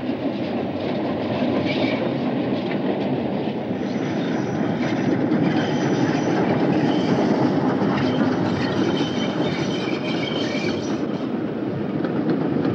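LMS Black Five steam locomotive and its train of coaches passing close by, wheels clattering over the rail joints, with a thin high wheel squeal from about four seconds in until near the end.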